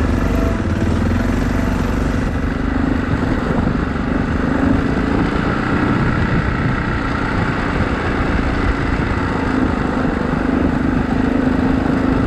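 Yamaha XT660Z Ténéré's single-cylinder engine running at a steady, moderate speed while the bike is ridden.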